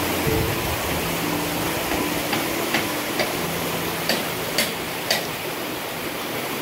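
Stream water rushing through a wooden sluice gate, a steady rush. A run of sharp ticks, about two a second, sounds over it for a few seconds in the middle.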